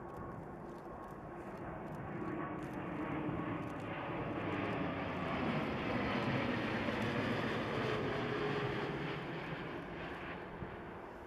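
Boeing 787 Dreamliner jet engines heard as the airliner flies overhead: a rushing jet noise builds to its loudest about halfway through, then fades as the plane climbs away, with a low tone sliding down in pitch as it recedes.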